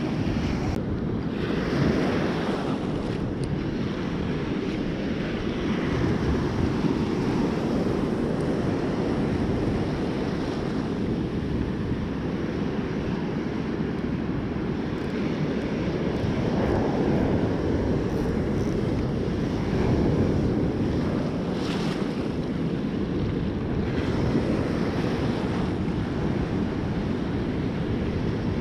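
Surf breaking and washing up the beach in a heavy swell, with wind buffeting the microphone; the rush swells and eases as each wave comes in.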